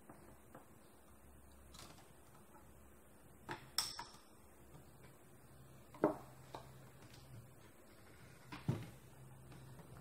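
Sharp small clicks and clinks of metal and plastic parts as a copier's fuser unit is worked apart by hand with a screwdriver, coming in three pairs a couple of seconds apart.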